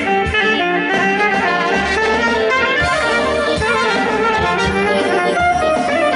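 Instrumental passage of a traditional Macedonian song played by a brass band: trumpet and saxophone carry the melody over a steady low beat.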